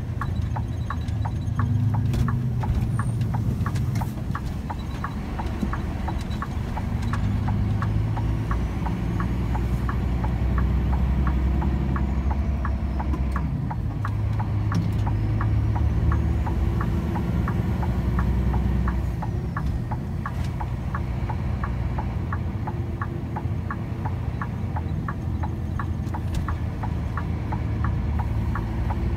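A vehicle driving slowly, its engine running low and steady under an even ticking of about three to four clicks a second that keeps going throughout.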